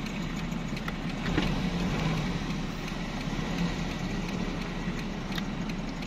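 Off-road vehicle engines idling with a steady low hum, with a few faint ticks over it.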